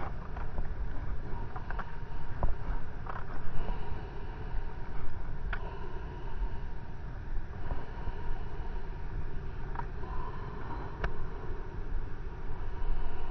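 Steady low rumble of wind buffeting the microphone and surf on the beach, with a few sharp clicks.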